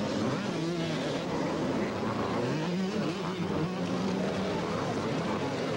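Several two-stroke motocross bikes racing, their engines revving up and down with each gear change.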